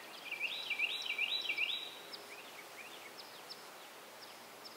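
Small birds singing faintly: a run of four quick rising whistled notes in the first two seconds, then scattered short falling chirps, over a faint steady hiss.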